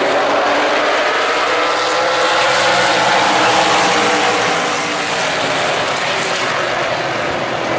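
A pack of oval-track race cars running together past the grandstand: many engines at once in a loud, overlapping drone that eases a little after about five seconds.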